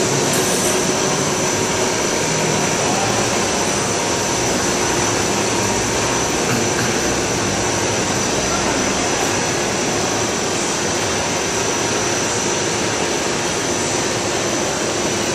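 Three-layer polyethylene blown-film line running: a loud, steady, even rush of machine noise with a constant high whine.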